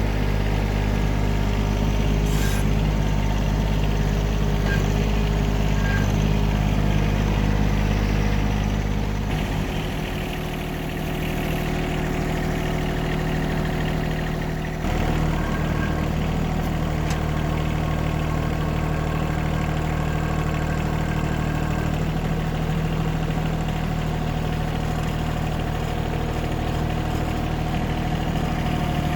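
John Deere tractor engine running steadily, its note changing about ten seconds in and shifting again a few seconds later.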